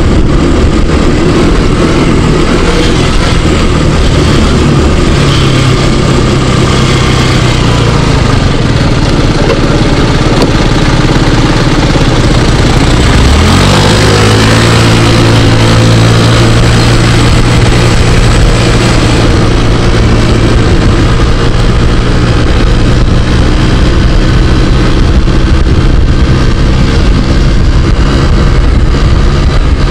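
Scooter engine running while riding, with steady wind and road rush; about halfway through the engine note rises quickly as it accelerates, then holds steady.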